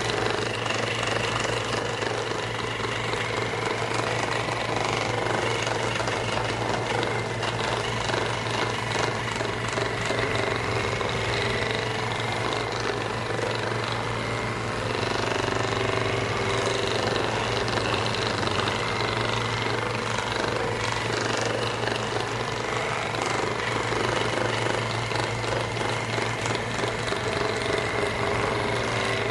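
Handheld vibration massager running steadily with a fast, even buzz as it is worked over a person's upper back.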